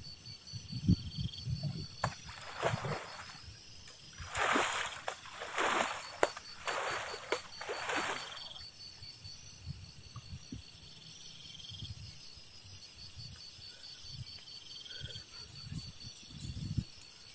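A series of splashes in river water, about five over several seconds, the loudest about four seconds in, then a quieter stretch. Insects chirp steadily throughout.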